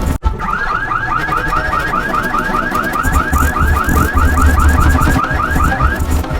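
Electronic alarm-like sound effect: a fast run of short rising chirps, about five a second, over a heavy bass rumble. It starts just after a brief cut and stops about six seconds in.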